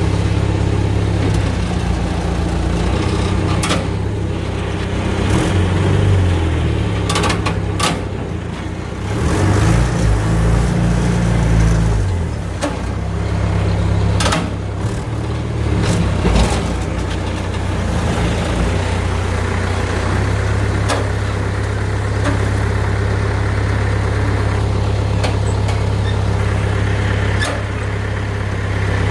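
Log skidder's diesel engine working under load as its blade pushes a cut tree over. The engine pitch rises and falls between about 5 and 12 seconds in, with several sharp cracks and knocks along the way.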